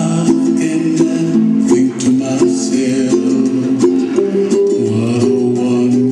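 Dance music with a strummed string instrument keeping a steady rhythm.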